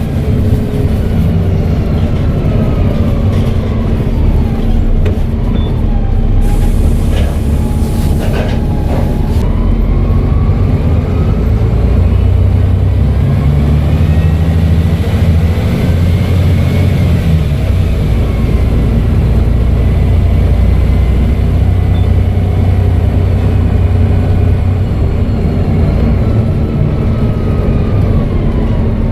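Volvo B7TL bus's turbocharged six-cylinder diesel engine running under way, its turbo whistling in tones that rise and fall again and again as the bus pulls and eases off. A hiss of air comes in about six seconds in and lasts around three seconds.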